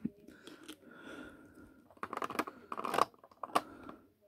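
Plastic LEGO pieces being handled: soft rustling, then a quick run of sharp clicks and clatters about two seconds in.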